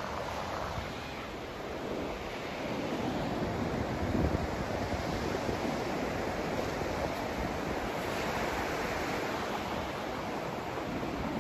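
Continuous rushing noise played for sleep and relaxation, deeper than flat hiss and like surf or wind. It is steady, with a gentle rise in level about two to four seconds in.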